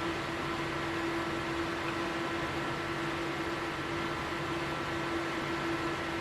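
CPU cooler fan running at speed: a steady whir with a constant hum tone through it.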